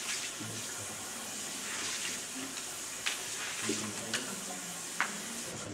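Steady hiss of room and recording noise, with faint low murmurs and a few short sharp clicks about three, four and five seconds in.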